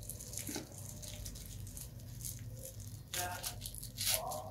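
Faint rustling and crinkling of a small paper packaging wrap as hands unwrap it, with light ticks. A couple of louder crinkles come about three seconds in and near the end.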